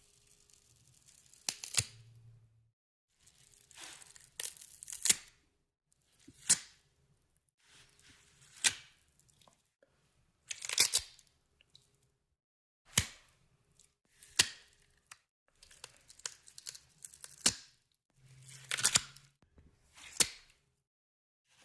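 A string of about a dozen short, separate tearing and cracking noises, each starting sharply and lasting a second or less, with quiet gaps between them.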